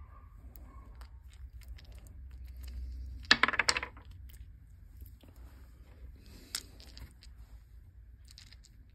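A handful of small resin polyhedral dice clicking and clattering together in the palm as they are handled, with a louder burst of clatter a little past three seconds in.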